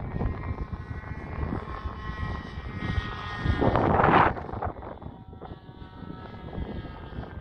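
Engine of a radio-controlled model airplane flying overhead, a steady high-pitched whine with wind rumbling on the microphone. There is a louder rushing surge about four seconds in, after which the engine tone fades.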